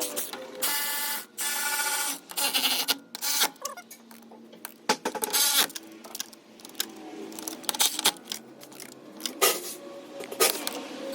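Irregular metal knocks and clanks as a new CV axle is worked and seated into the front differential of a BMW 535 F10 xDrive, with a ringing metal strike about a second in.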